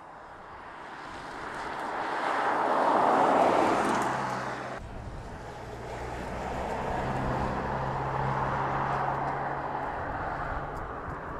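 2016 Mercedes-Benz E-Class saloon driving past: tyre and engine noise swells to a peak about three seconds in and fades. After a sudden cut a second pass follows, with a steady low engine hum that rises and then eases off.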